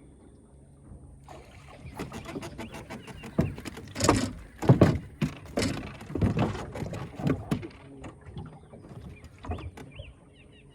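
Water splashing in a run of uneven bursts, loudest about four to five seconds in, then dying away.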